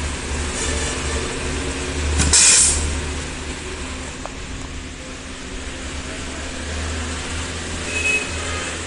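Pneumatic wire-stripping and terminal-crimping machine humming steadily as it runs. About two seconds in there is a short, loud hiss of compressed air as the machine cycles on a wire.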